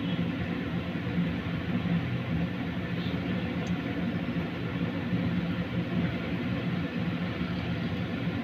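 Steady low machine hum with an even rushing noise over it; a couple of faint light ticks about three seconds in.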